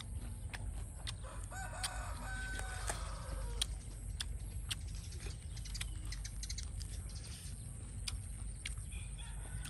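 A rooster crowing once, about a second and a half in, a call of roughly a second and a half that falls at the end, with scattered sharp clicks and taps throughout.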